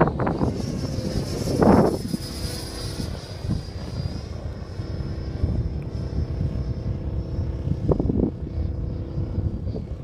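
Model aircraft in flight, its motor and propeller giving a steady high whine that drifts slightly in pitch. Low, gusty wind rumble on the microphone runs underneath, with stronger gusts twice.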